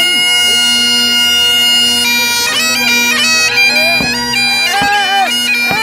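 Great Highland bagpipes playing: the drones sound steadily while the chanter holds one high note for about two seconds, then moves into a quick tune full of grace-note flourishes.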